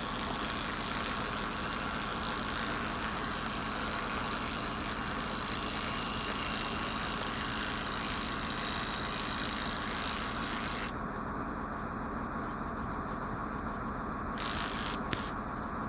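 Heavy truck engine idling steadily, with a higher hiss that drops away about eleven seconds in.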